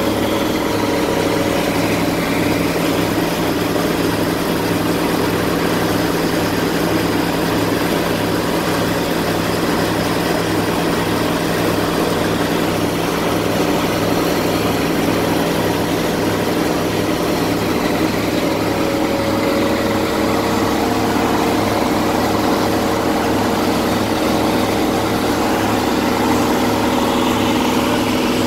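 Heavy diesel engine of construction machinery idling steadily, with a regular low throb.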